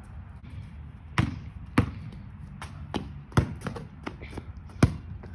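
A basketball bouncing on an asphalt driveway: a handful of sharp, irregular bounces, several of them loud.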